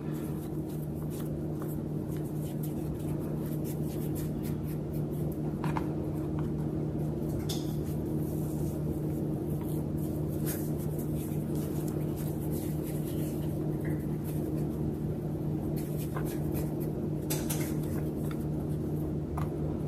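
A steady low electrical or appliance hum, with faint scattered taps and soft rustles of hands rolling masa dough into balls on a wooden cutting board.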